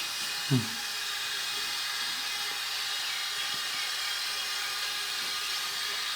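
Steam hissing steadily from the vent of a small pressure cooker with its weight removed, where a PVC pipe is fitted to carry the steam for inhalation. A short low thump comes about half a second in.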